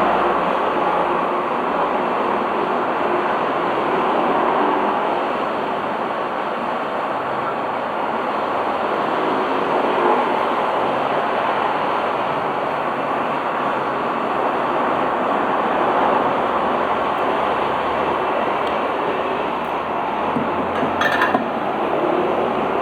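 Hot-air rework station blowing a steady stream of air, used to heat and lift a chip off a phone's logic board. A brief metallic clink near the end.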